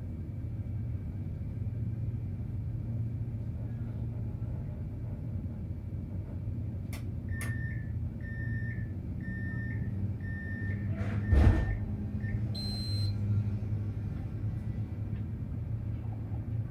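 Tram standing at a stop with a steady low hum. About halfway through comes a run of about five short, evenly spaced beeps, the door-closing warning, ending in a single loud thud as the doors shut, then a brief higher tone.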